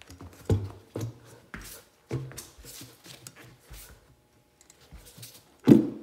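Irregular knocks and clunks of hand work on a motorcycle wheel and tire, about half a dozen, with a heavier thump near the end.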